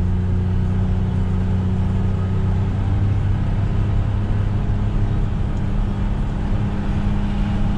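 John Deere Gator utility vehicle's engine running at a steady low hum as it drives slowly, heard from inside the cab, with a steady hiss of rain and tyre noise.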